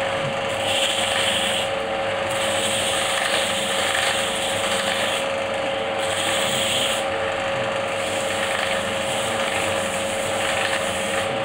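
Electric motor of a bearing-roller friction test rig running steadily, with a constant whine, and a rubbing, rasping noise from the spinning outer bearing ring that grows brighter and fades several times.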